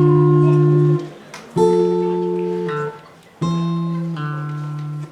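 Guitar strumming chords and letting each ring for about a second before it is stopped, three chords in turn with short breaks, the last one changing partway through.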